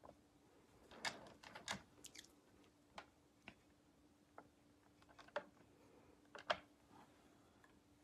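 Faint, scattered small clicks and taps over a low steady hum: handling noise as a paintbrush is worked against a porcelain plate.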